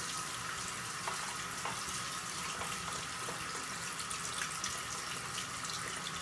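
Water from a bathroom sink faucet running steadily into the basin while hands are washed under the stream.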